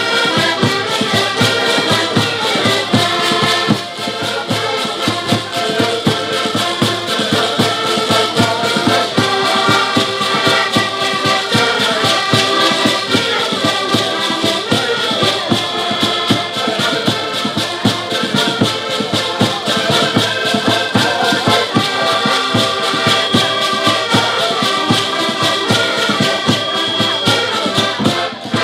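Portuguese folk ensemble playing an instrumental passage: several diatonic button accordions carry the melody over a steady bass-drum beat, with a small plucked string instrument and shaken or scraped percussion. The music stops abruptly at the very end.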